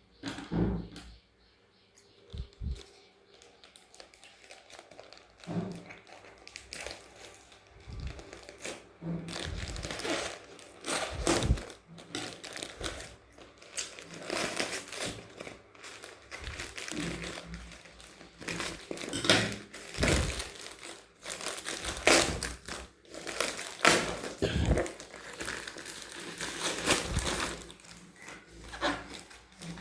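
A mailed package being opened by hand: irregular crinkling, rustling and tearing of packaging with occasional small knocks, sparse at first and busier after several seconds.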